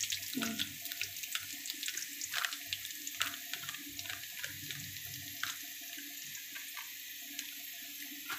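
Sliced onions and garlic frying in hot oil in a karahi: a steady sizzling hiss with scattered pops and crackles.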